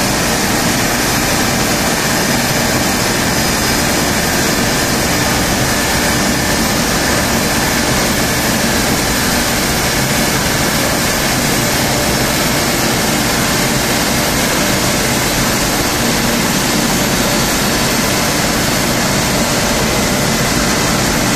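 Mercedes-Benz M119 5.0-litre V8 in a W201 running steadily on a chassis dyno, at a constant speed with no revving, under an even rushing noise.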